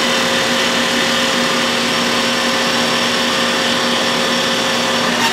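Stone bridge saw's water-cooled diamond blade cutting a slab of nano crystallized glass: a loud, steady whine over a hiss.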